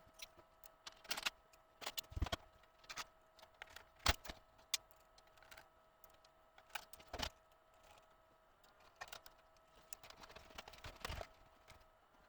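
Scattered light clicks and knocks of parts being handled and fitted into a computer case's front drive bays, with a faint steady whine underneath.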